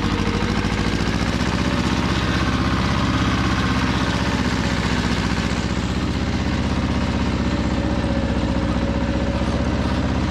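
Pasquali 425 compact 4x4 tractor's two-cylinder, 30 hp engine running steadily under load while pulling a plough through the soil.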